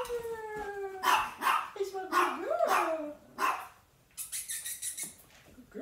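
Golden retriever vocalizing excitedly: a long whine falling slowly in pitch, then wavering, yodelling whines and short barks, and a brief hiss near the end.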